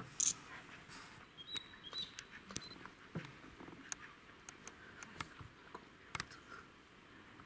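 Scattered sharp clicks and snaps in forest quiet, with a few short high chirps from a small bird about one and a half to two and a half seconds in.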